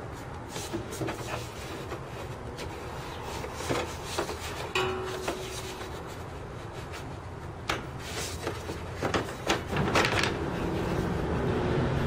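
Plastic air filter cover on a riding mower's engine being worked loose and lifted off by hand: a string of plastic clicks, knocks and rattles, with a short squeak about five seconds in and the loudest knocks near the end.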